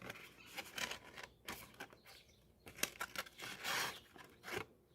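Thin cardstock favor box being folded and creased by hand: the card rustles and rubs, with scattered light clicks and taps and a longer scraping rub near the end.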